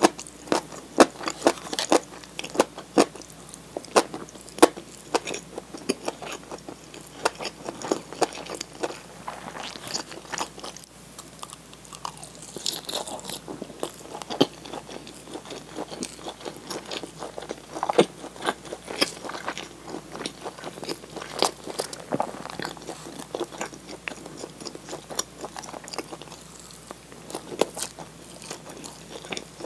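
Close-miked eating: a person chewing with frequent sharp crunches and wet mouth clicks, the crunching denser in the first ten seconds or so.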